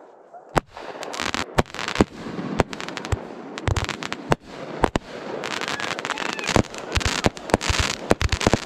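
Consumer fireworks going off: an irregular run of sharp bangs and pops with crackling between them, coming faster and thicker about halfway through.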